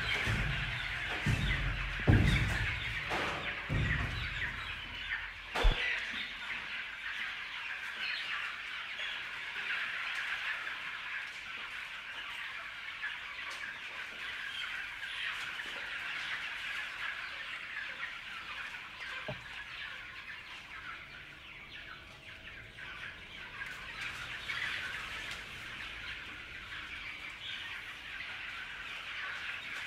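A crowd of chicks cheeping continuously, many small high peeps overlapping. A few dull thumps sound in the first six seconds.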